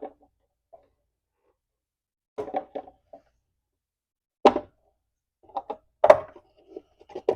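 Metal parts of a motorcycle's front end knocking and clunking as they are handled, with a cluster of light knocks and then two sharp, louder knocks about four and a half and six seconds in.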